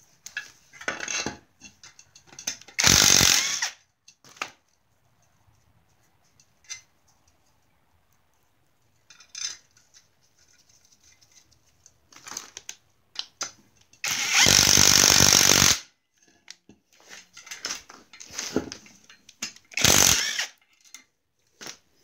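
A handheld power tool runs in three short bursts, the longest about a second and a half, driving bolts into an exhaust manifold and catalytic converter flange. Metal parts clink and tap between the bursts.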